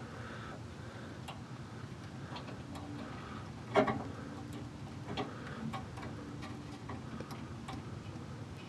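Scattered small clicks and taps of hands and tools working a replacement bulb into the illuminated lock's bulb socket inside a car door, with one sharper click about four seconds in.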